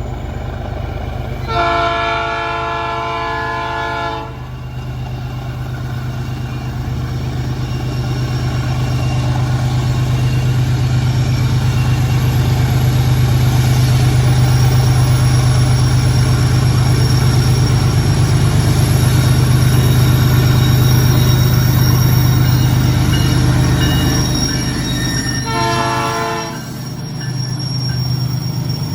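Diesel freight train locomotive sounding its multi-tone horn twice, a blast of about two and a half seconds, then a shorter one near the end, over the steady low rumble of the locomotive engines, which swells and then eases as the train passes.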